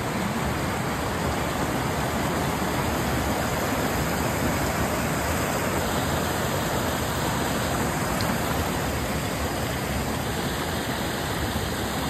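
Steady rushing of water pouring down a small waterfall.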